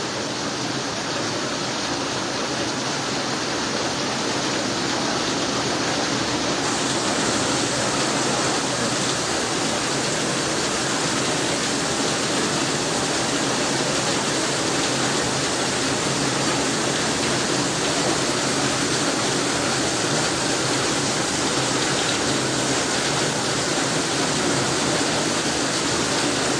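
Floodwater rushing down a street as a torrent, mixed with heavy rain: a loud, steady rushing that grows slightly louder after the first few seconds.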